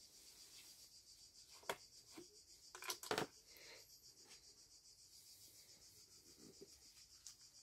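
Insects chirring steadily and high-pitched, with a few sharp knocks and rubs from gloved hands handling a plastic chain-oil bottle on a board, the loudest about three seconds in.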